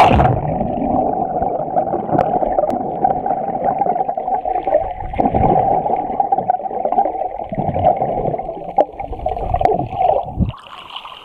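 Muffled underwater sound picked up by a Garmin VIRB XE action camera: a splash as it goes under, then a steady rushing water noise with a hollow middle tone and a few small clicks. Near the end a swimmer's breath bubbles gurgle, and the sound cuts off suddenly as the camera comes out of the water.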